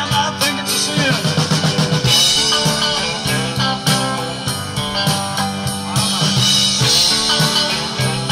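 Rock music without singing: drum kit and guitars playing a steady beat.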